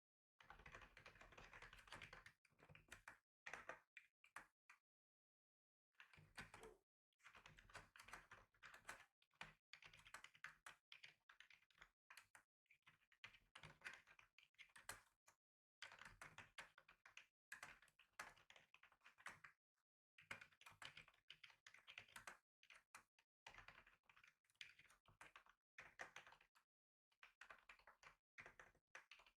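Quiet typing on a computer keyboard: rapid key clicks in runs of a few seconds, with short pauses between them.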